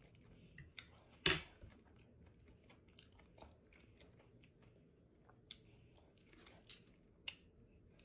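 Close-miked mouth sounds of a person chewing a bite of buffalo catfish: soft wet clicks and smacks, with one sharp smack about a second in.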